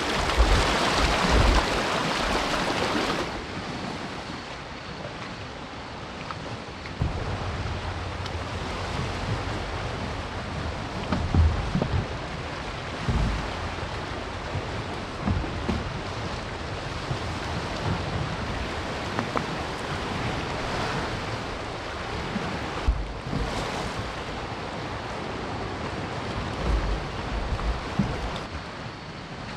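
Sea waves washing on the shore in a steady wind, with gusts buffeting the microphone in low rumbles. The first three seconds or so are louder.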